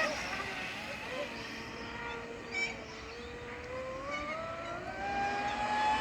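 Pro Boat Supersonicwake RC boat running on 10S, its brushless motor (4070 TP, 880 kV) giving a high whine. The pitch falls sharply at the start and the whine turns quieter, then it rises steadily from about four seconds in and holds high again.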